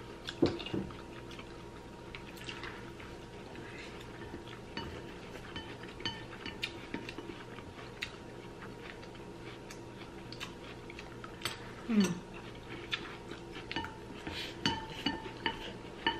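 Chopsticks and spoons clicking lightly and irregularly against ceramic bowls as two people eat noodles, with chewing and slurping. A short voice sound, falling in pitch, about twelve seconds in.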